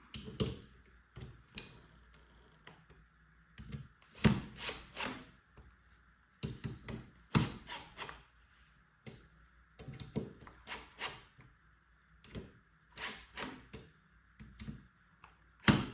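Irregular metal clicks and knocks of a hand tool tightening the four bolts on a pool pump motor's end cap, one bolt and then another in turn.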